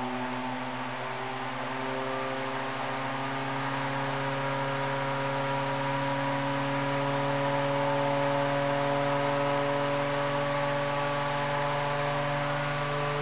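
Blower door fan running, a steady hum of several tones that slowly rise in pitch as the fan speeds up to pull the house down to test pressure for the air-leakage reading.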